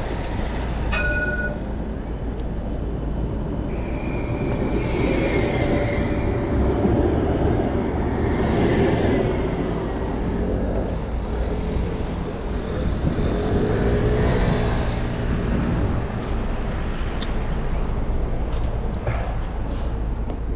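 Steady wind and road noise from riding a fixed-gear bicycle through city traffic, with vehicles passing. A short high squeal about a second in, and a longer wavering one around five seconds in.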